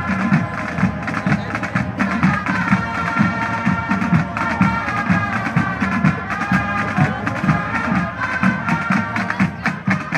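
High school marching band playing: sustained brass and woodwind lines over a steady, regular beat.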